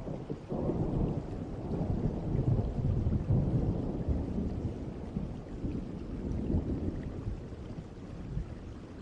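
Distant thunder rolling over steady rain: a low rumble that builds about half a second in, then slowly fades away.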